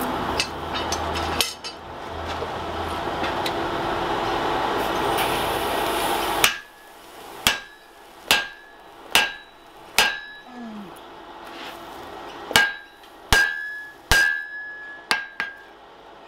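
Steady rushing noise for about six seconds, then about ten hand-hammer blows on a steel drift set in the eye of a red-hot wrought iron hammer head, roughly one a second, each with a short metallic ring, as the eye is drifted open.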